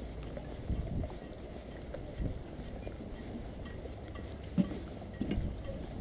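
Wind buffeting the open-housing microphone of a camera mounted on a moving bicycle, a steady low rumble with scattered rattles and knocks from the bike. One sharper knock comes about two thirds of the way in.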